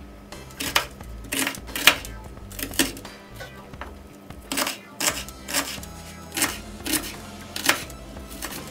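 Kitchen knife dicing a red onion on a wooden cutting board: sharp, irregular knocks of the blade hitting the board, about one or two a second, over faint background music.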